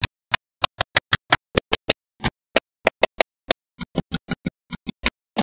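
Small neodymium magnetic balls snapping onto a magnet-ball structure: a quick run of about two dozen sharp clicks, each cut off short, coming faster in the second half.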